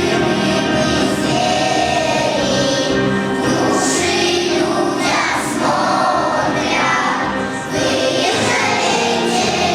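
A children's choir sings a song in unison over a musical accompaniment.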